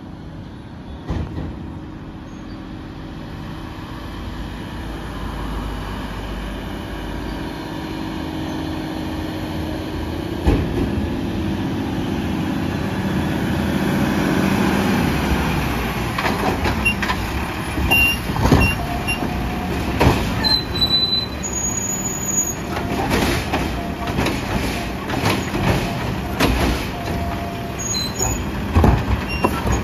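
Mack LR garbage truck approaching at low speed, its engine running and growing louder. From about halfway on come repeated clanks and knocks from the truck body and brief high-pitched brake squeals.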